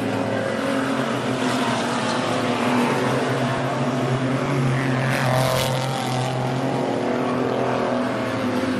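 A pack of stock car engines running hard together as the cars race round the oval, a steady layered drone. Between about five and six seconds in, a brief louder rush rises above it.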